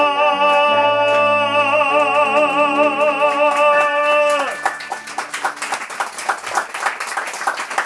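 A man sings a long held final note with vibrato over sustained chords from a Casio Privia digital piano, the song ending about four and a half seconds in. An audience then applauds.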